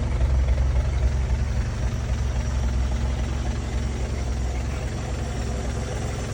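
Four-cylinder gasoline engine of a Lincoln Shield-Arc welder idling steadily.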